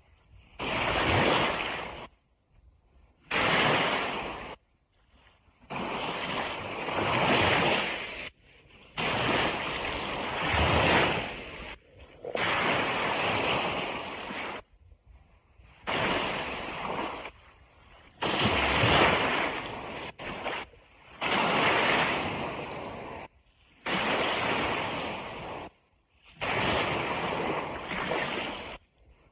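Ocean surf washing on a beach, heard as about ten surges of rushing water, each lasting one to three seconds. Each surge cuts off suddenly into a near-silent gap.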